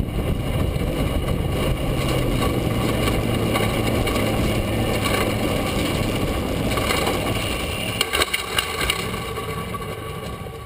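Front-engine dragster rolling with its engine idling, heard from on board with wind and rumble on the microphone. A few sharp knocks come about eight seconds in, and the sound then fades.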